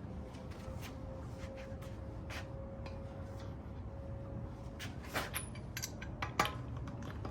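A few sharp metallic clinks of a wrench and socket on the wheel's lug nuts as they are tightened. They come about five seconds in and the last, near the end, is the loudest. A faint steady tone is heard before them.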